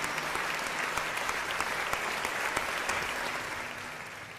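Large crowd applauding, a dense steady clatter of many hands clapping that fades out over the last second.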